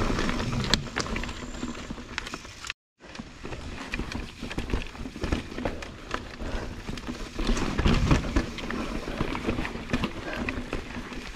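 Mountain bike rolling over rocky dirt singletrack: tyres crunching on rock and dirt, with a steady clatter of knocks and rattles from the bike. The sound cuts out completely for a moment about three seconds in.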